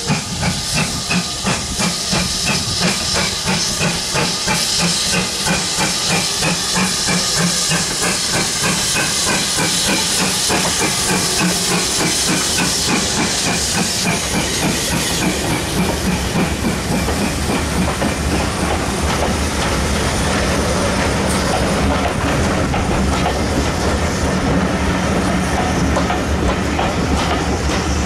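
GWR Grange-class 4-6-0 steam locomotive No. 6880 Betton Grange working past with hissing steam and an even, rhythmic beat of exhaust chuffs. About halfway through, the locomotive has gone by, and the sound gives way to its coaches rolling past with wheels clicking over the rail joints.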